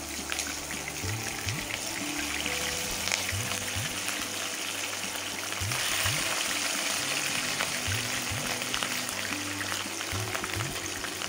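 Pieces of katla fish sizzling and crackling as they fry in hot mustard oil, growing louder from about halfway through as more pieces go into the pan. Background music plays underneath.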